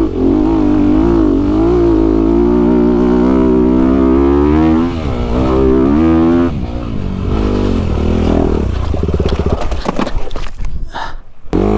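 Four-stroke Honda CRF250 dirt bike engine pulling up a steep dirt trail, its revs rising and falling with the throttle and gear changes. There is a brief break near the end.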